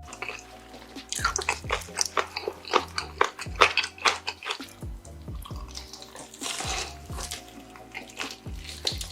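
Close-miked eating sounds: a person chewing a large mouthful, with rapid wet smacks and crunchy clicks, over background music.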